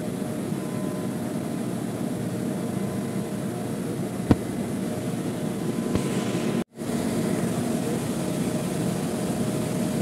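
Steady hum and air noise of running air-conditioning equipment, with a single sharp click about four seconds in and a brief cut-out of all sound a little past the middle.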